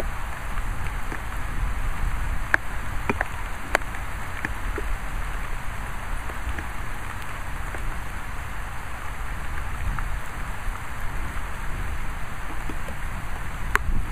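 Steady rain falling, with a low rumble underneath and a few sharp taps of drops striking close by, a cluster of them about three seconds in and another near the end.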